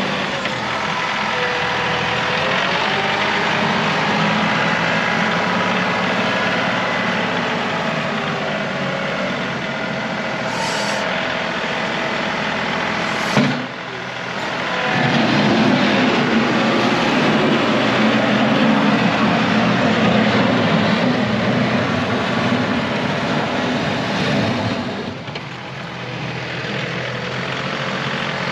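John Deere 2038R compact tractor's three-cylinder diesel engine running while plowing snow. There is a sharp click about halfway through. After it the engine runs louder for about ten seconds, then eases off and settles again.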